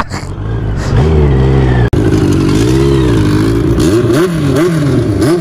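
Kawasaki Ninja H2's supercharged inline-four engine revved up and down repeatedly through a homemade tin-can exhaust, the pitch rising and falling in several quick swoops.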